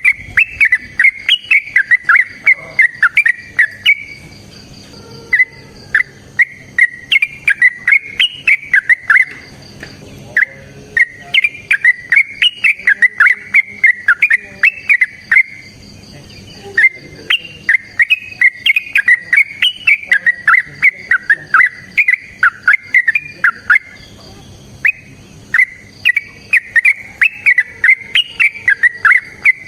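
Yellow-vented bulbul singing its rapid chattering 'ropel' song, a long fighting call used to provoke other bulbuls: runs of fast, sharp notes lasting several seconds each, broken by short pauses.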